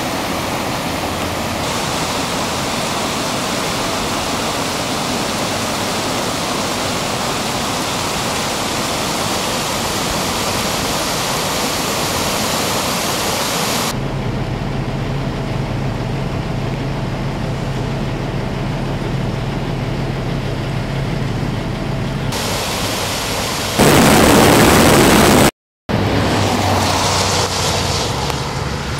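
Steady rushing noise of fast-flowing floodwater for about the first half. After a cut comes a steady low engine hum, then a short, louder rush of noise, a brief dropout and a passing vehicle's noise near the end.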